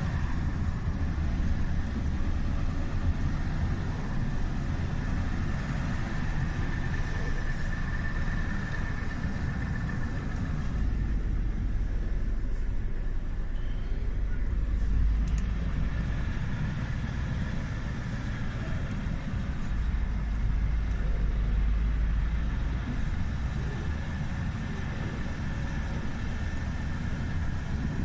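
Heavy truck's diesel engine running, heard from inside the cab while the truck creeps along with a long trailer. The low rumble swells twice, about eleven seconds in and again about twenty seconds in, as the engine takes more load.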